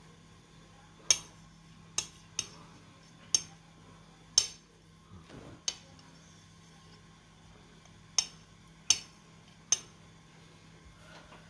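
Metal table knife clinking against the rim of a ceramic plate while spreading and smoothing ube halaya: about nine sharp, separate clinks at irregular intervals, with a gap of a couple of seconds in the middle.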